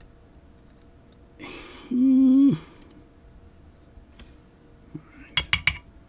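Small metal lock parts clicking and clinking as the unsprung sliders of a disassembled Ruko Garant Plus lock are worked out of the core, with a quick cluster of three or four sharp clicks near the end. A short steady hum sounds about two seconds in.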